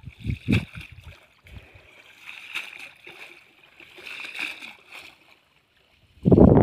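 A cast net is dragged and lifted out of shallow muddy water, with splashing and water streaming off the mesh. A loud burst of low thuds comes near the end.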